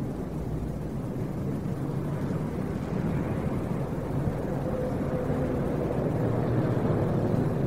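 Steady low engine rumble with a faint hum, slowly growing a little louder.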